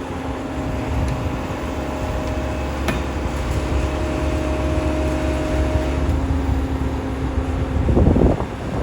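Kobelco SK200SR hydraulic excavator running: a steady low engine drone with a steady whine over it, and a brief louder surge near the end.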